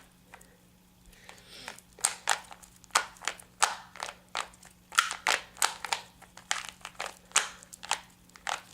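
Rubik's Cube being turned by hand during a solve: a run of quick plastic clicks and clacks from the layers turning. They are sparse for the first couple of seconds, then come several to the second.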